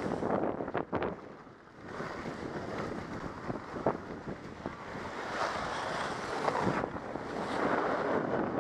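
Wind buffeting the microphone during a downhill run, over the hiss and scrape of a Trikke Skki's skis carving the snow. It dips briefly about a second in.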